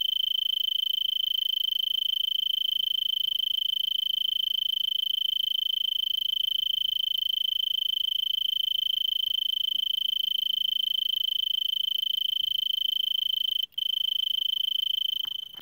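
Arizona tree cricket stridulating: a continuous, high-pitched trill on one steady pitch, broken once for a split second near the end.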